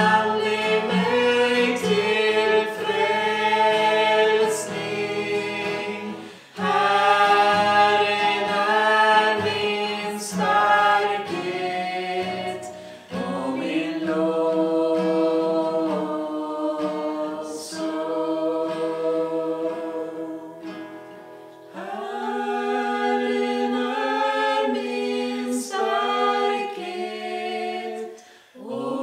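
Small group of mixed voices singing a Swedish praise chorus together in phrases, accompanied by an acoustic guitar.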